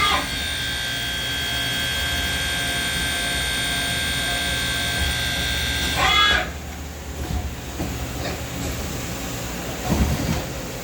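A Doosan Puma TT1800SY CNC turning center running with a steady high-pitched whine of several tones. The whine starts suddenly, holds for about six seconds, then winds down and stops, leaving a lower machine hum. There is a clunk near the end.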